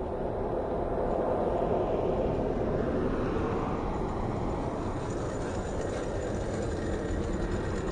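Road traffic noise from cars passing, swelling over the first two seconds and then holding steady.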